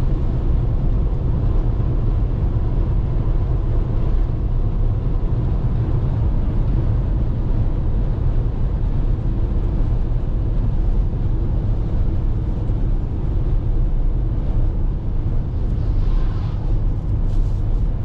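Steady low rumble of a car's tyres and engine on a wet road, heard from inside the cabin.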